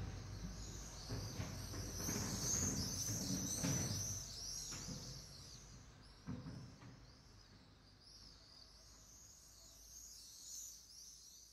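Many small birds chirping in a dense, overlapping chorus over a low background rumble of outdoor ambience; the rumble and overall level fade away over the second half.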